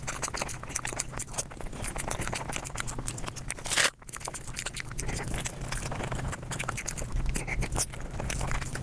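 Eating sounds of a mukbang played back at five times speed: a rapid, dense stream of crunching and chewing clicks, with one loud short burst about four seconds in.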